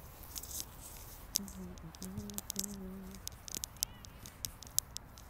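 Faint ambience of a soccer game on an outdoor turf field: scattered sharp ticks from the play, and a distant low held tone in three short parts starting about a second and a half in.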